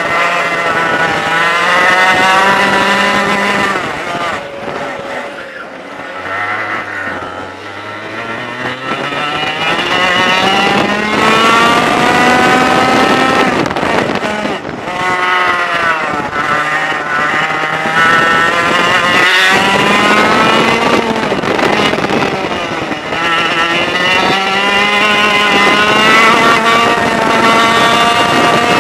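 Onboard sound of a racing kart's 100cc two-stroke engine revving hard, its pitch rising along the straights and falling as the driver lifts for corners. It drops away sharply about five seconds in, then climbs steadily for several seconds, and lifts and picks up again a few more times.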